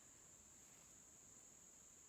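Near silence, with a faint steady high-pitched drone of insects, such as crickets.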